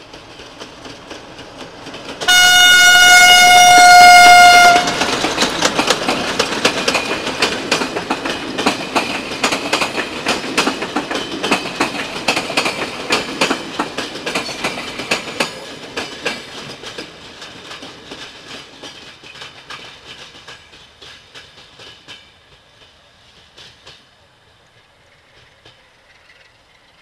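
A passenger train's diesel locomotive sounds one long single-tone horn blast about two seconds in. The locomotive and its coaches then pass close by with a fast clickety-clack of wheels over rail joints, which fades away as the train recedes.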